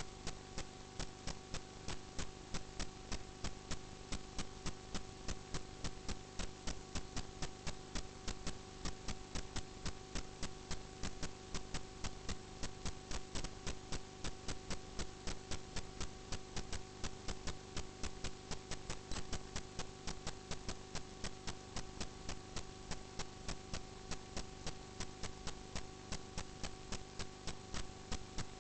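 Steady electrical-sounding hum with an even, machine-regular ticking about three times a second.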